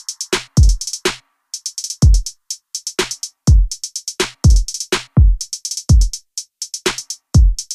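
Background electronic music: a drum-machine beat of deep kicks that drop in pitch, with fast runs of hi-hats.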